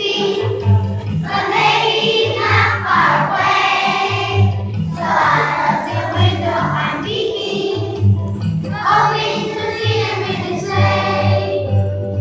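Choir of young children singing a song in phrases over a recorded musical accompaniment with a steady bass line.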